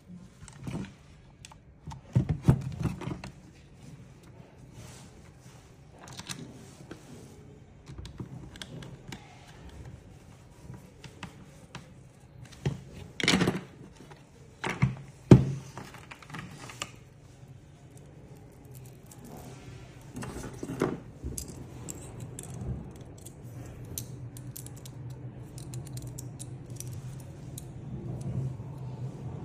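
Parts of an 8-inch brushless pruning chainsaw being handled and fitted together: scattered clicks and knocks of the steel guide bar and plastic housing, the loudest few about halfway through, and the loose saw chain jingling.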